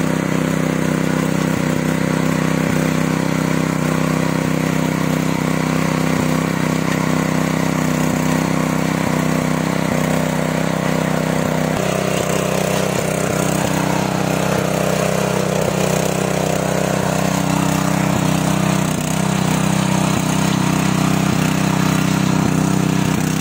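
Alap 7.5 hp power weeder's engine running steadily while its rotary tines till the soil. The engine note changes slightly about halfway through.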